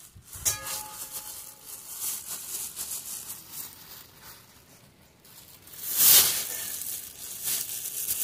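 Thin black plastic bag crinkling and rustling as it is untied and opened by hand. The rustling is loudest in a burst about six seconds in.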